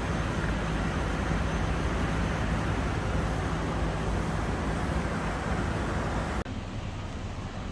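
Steady low machine hum with a broad rushing noise from running air-conditioning outdoor plant. About six and a half seconds in it drops abruptly to a quieter hum.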